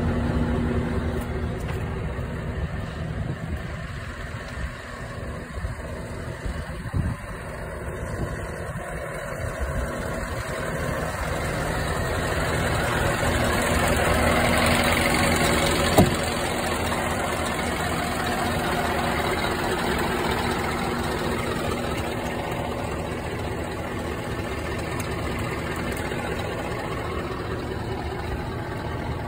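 Scania R620's V8 diesel engine idling steadily, with one sharp click about halfway through.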